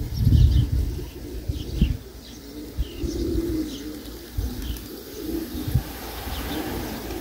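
Pigeons cooing: several low coos about every two seconds, with short high chirps of small birds over them. A low buffeting rumble is loudest in the first two seconds.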